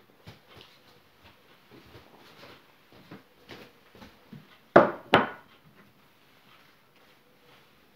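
Glasses and small objects being handled on a wooden cabinet close to the microphone: scattered light taps and clinks, with two loud knocks close together about five seconds in.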